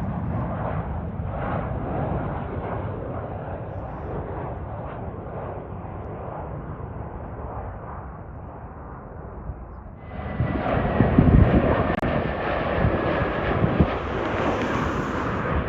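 Jet airliner engines rushing as a plane passes, the noise slowly fading. About ten seconds in, the sound turns suddenly louder and brighter, with low gusty rumbling and a faint high engine whine that drops slightly in pitch.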